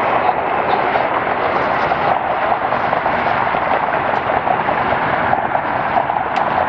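Jet engine noise from a Boeing 787 climbing out after takeoff: a steady, loud rumble with a rough, crackling texture.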